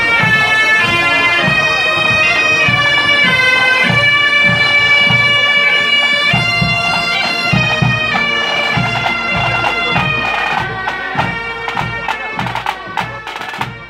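A marching pipe band: Highland bagpipes playing a tune over their steady drones, with a bass drum beating time and snare drums. In the last few seconds the pipes fade and the rattling snare drums come to the fore.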